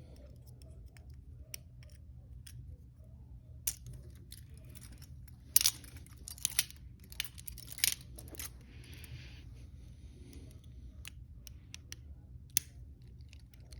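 Irregular small sharp metallic clicks and scrapes from a pick working inside a double-locked Peerless handcuff lock, bunched most loudly toward the middle, over a low steady hum.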